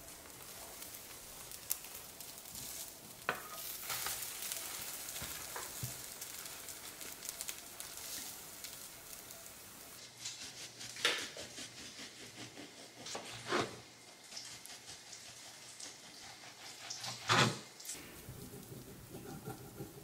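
Food sizzling in a frying pan, with scattered clicks and a few louder knocks of utensils against the pan.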